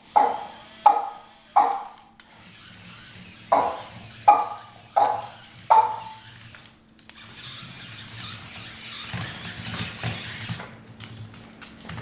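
Boston Terrier barking sharply, three barks and then four, about one every 0.7 s. After that comes a few seconds of steady whirring hiss with a low hum underneath.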